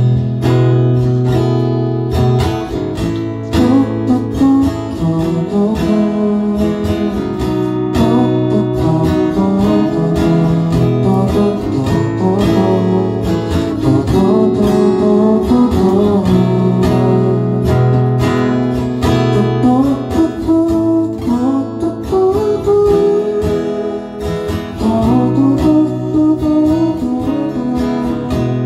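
Dreadnought acoustic guitar strummed in a steady rhythm, playing the song's chords in an instrumental passage.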